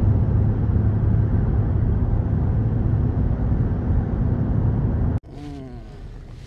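A motor running with a loud, steady buzzing drone that cuts off abruptly about five seconds in.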